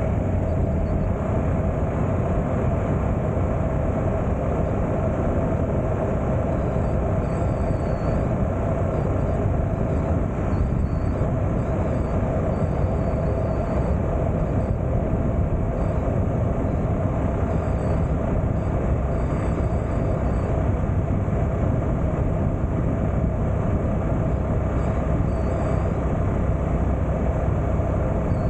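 Motorcycle engine droning at a steady cruise, mixed with wind and tyre noise, recorded from on the bike.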